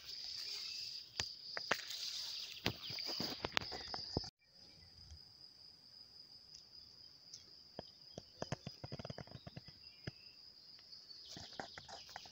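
Meadow insects chirring: a steady high-pitched buzz, with grass rustling and clicking close by for the first few seconds. About four seconds in the sound cuts out briefly, then the buzz goes on more quietly with only scattered light ticks.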